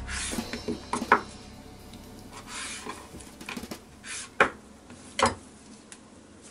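Kitchen knife scraping and knocking on a wooden cutting board while a squid fin is trimmed, with a few sharp knocks about a second in and again past the middle.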